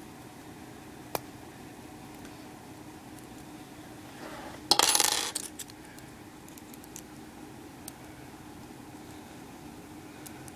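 Metal puzzle pieces clinking as the puzzle is worked apart: one sharp click about a second in, then a loud clatter of metal on metal about five seconds in, with a few faint ticks between.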